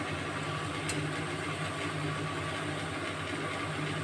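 Steady low mechanical hum with a hiss over it, like a running motor, and one light click about a second in.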